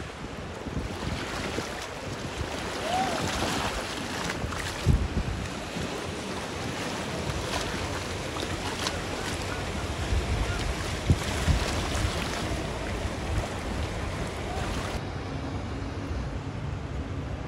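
Floodwater sloshing and splashing as vehicles wade through a flooded street, with wind buffeting the microphone.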